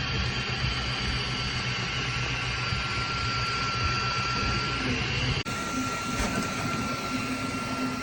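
Flashforge Adventurer 5M 3D printer running: a steady mechanical whir with a constant high whine over a low hum. The sound breaks off for an instant about five seconds in and carries on much the same.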